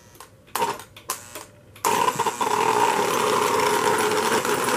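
Lionel 736 Berkshire O-gauge model steam locomotive held in place on the track under power: a few short clicks, then about two seconds in its motor and gearing start running steadily as the throttle is brought up to heat the smoke unit.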